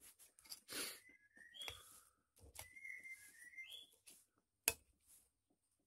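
Metal spoon scraping and clinking against a glass plate, with one sharp clink near the end. Faint whistling tones waver in the background.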